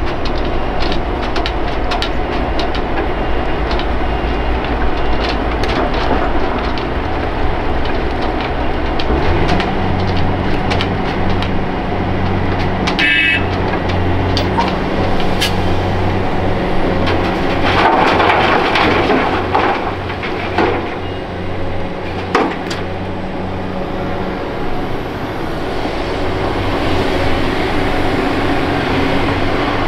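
Hitachi Zaxis 470 LCH excavator working: its diesel engine runs steadily and picks up load about a third of the way in, with scattered knocks and clanks from the bucket and dirt. There is a brief high squeal near the middle and a louder rattling stretch a little after it.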